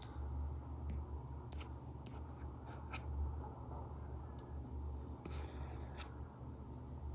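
Apple Pencil Pro tip tapping and drawing on an iPad screen covered with a paper-like film: scattered sharp taps and a short scratchy stroke about five seconds in, over a low steady hum.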